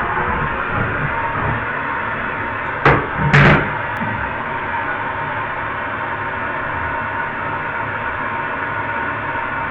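Propane torch flame hissing steadily while copper plumbing is heated for soldering, with two sharp knocks of metal parts about three seconds in.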